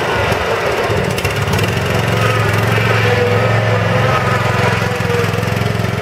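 2009 Jazee Country Clipper SR105 riding mower's 18.5 HP gas engine running at a steady low speed.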